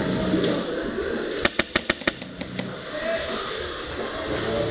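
Airsoft gun firing: a rapid string of about six sharp shots, then two more a moment later.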